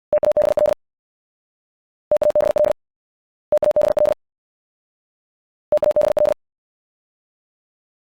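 Morse code sent at 70 words per minute: a single mid-pitched tone keyed into very fast dits and dahs. It comes as four short words, each about half a second long, with pauses of one to two seconds between them.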